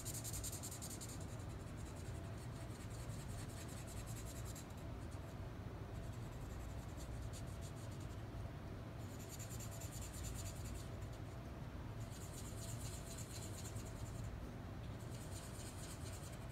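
Black felt-tip marker colouring in small shapes on paper: bursts of rapid back-and-forth scratchy strokes, each a second or a few seconds long, with short pauses between them.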